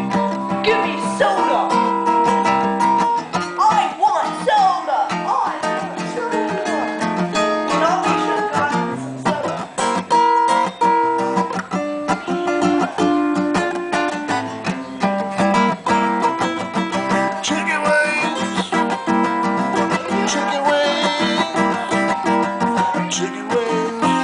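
Music: a song played on strummed acoustic guitar, with plucked guitar lines over it.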